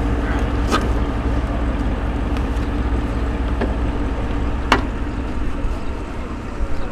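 An engine running steadily with a low drone, broken by two sharp knocks, one just under a second in and one about five seconds in.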